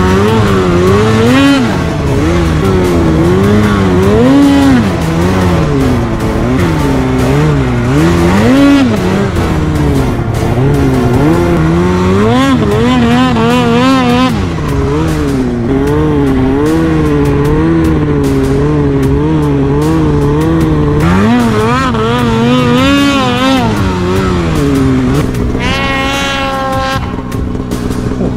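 Mountain snowmobile's two-stroke engine running under constantly changing throttle, its pitch rising and falling every second or two. Near the end a brief higher, wavering whine stands out.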